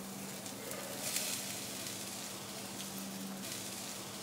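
Shallots and cranberries sizzling in olive oil in a frying pan, a steady hiss, over a steady low hum.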